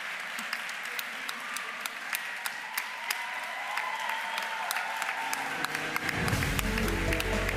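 Audience applauding, many hands clapping. About six seconds in, walk-on music with a heavy bass comes in under the applause.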